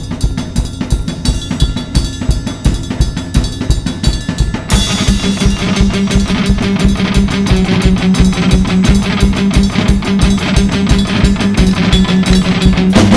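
Rock music soundtrack with a fast, steady drum beat; about five seconds in a held low note comes in and the music gets fuller.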